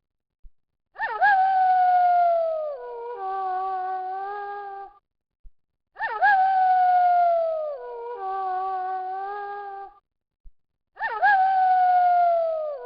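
Wolf howling: each call swoops up quickly and then glides slowly down, followed by a steadier, wavering howl. The same pair of howls repeats about every five seconds, with brief gaps between.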